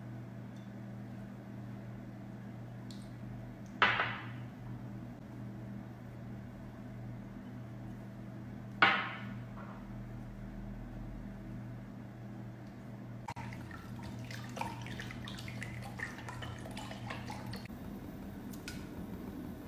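Sauces tipped from small glass bowls into a glass measuring jug of sauce, with two short sharp splashing knocks about 4 and 9 seconds in, over a steady low hum. From about two-thirds of the way through come light ticking and crackling as oil heats in a wok.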